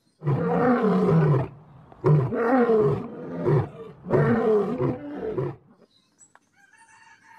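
Male lion roaring: three loud roars in a row, each lasting about a second or a little more, with short pauses between.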